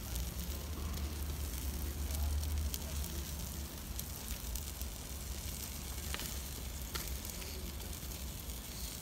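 Ham sizzling on a hot charcoal grill, a steady hiss with a few sharp pops and crackles. A low rumble sits under it for the first three seconds or so.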